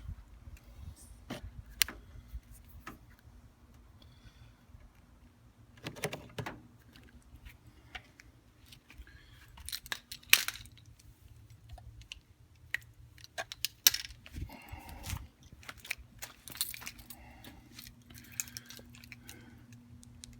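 Keys jangling on a key ring, with irregular clicks and knocks throughout and a louder knock about ten seconds in and another near fourteen seconds.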